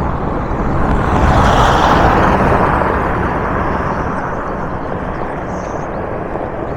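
A road vehicle passing close by on the dirt road: a rushing noise that swells about a second in, then slowly fades away.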